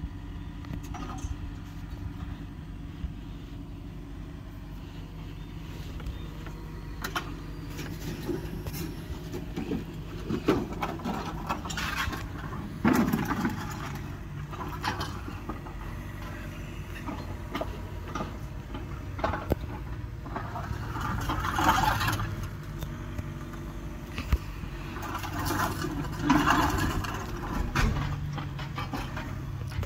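Mini excavator's engine running steadily, with irregular crashes and scraping as it breaks up building debris; the loudest crunches come around the middle and near the end.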